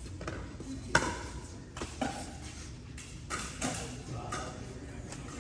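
Pickleball paddles hitting a plastic ball in a rally: a series of sharp pocks roughly a second apart, the loudest about a second in.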